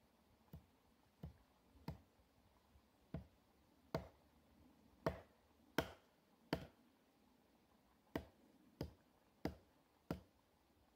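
Hatchet chopping wood, about a dozen sharp knocks at a steady pace of roughly one and a half a second, with a short pause partway through.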